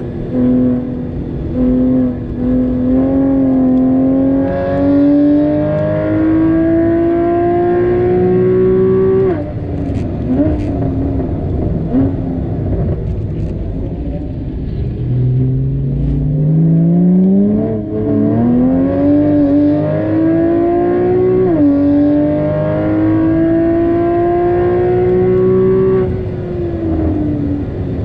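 Porsche Cayman GTS (981) 3.4-litre flat-six engine driven hard on track: its pitch climbs in long pulls under acceleration, drops sharply about nine seconds in with a few short rev blips as the car slows, then climbs again through two upshifts before falling away near the end.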